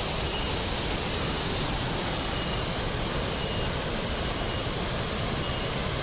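Waterfall and river water rushing, a steady even noise with no change in level. A faint high peep repeats about once a second over it.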